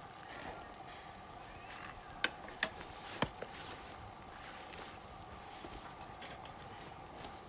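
Three sharp clicks of metal cooking utensils, a couple of seconds in, over a faint steady hum.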